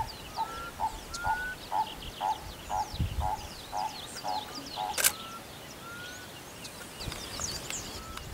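Wild birds calling: a series of short notes repeated about two and a half times a second for the first few seconds, short rising whistles every second or two, and faint high chirping throughout. A single sharp camera-shutter click comes about five seconds in.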